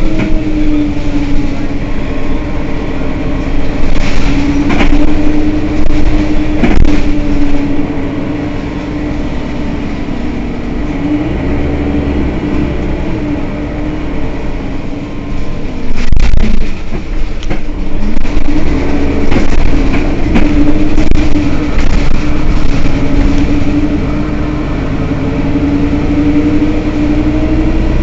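Mercedes-Benz Citaro city bus standing at a stop with its diesel running at idle: a low rumble under a steady, slightly wavering whine. A few short knocks and clatters come through, the loudest about two-thirds of the way in.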